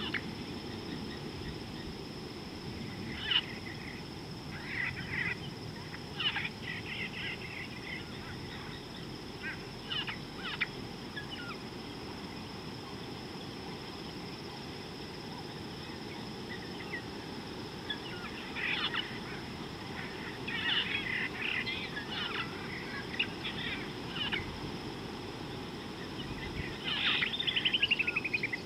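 Wild birds chirping in scattered short bursts, with a run of quick falling trills near the end, over a steady low outdoor rumble.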